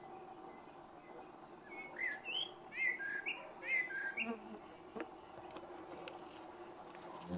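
Eurasian blackbird singing one phrase of its slow evening song: a run of fluting, warbling notes with a high twittering edge, starting about two seconds in and lasting some two and a half seconds.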